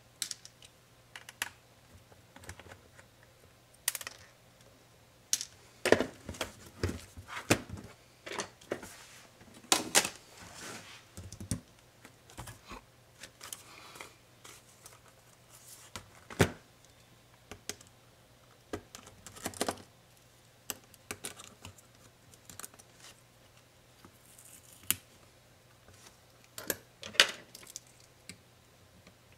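Irregular clicks, taps and knocks of a Dell XPS 13 9365 laptop's plastic and metal parts being handled and set down during disassembly of its palmrest and keyboard assembly. The loudest knocks come about 6, 10, 16 and 27 seconds in.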